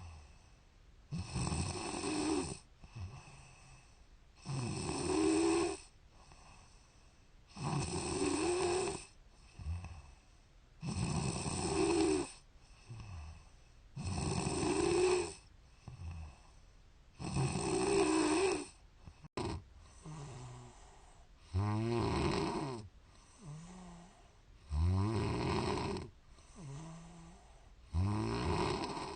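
A woman snoring in her sleep: a loud snore about every three seconds, each lasting about a second, with softer breaths in between.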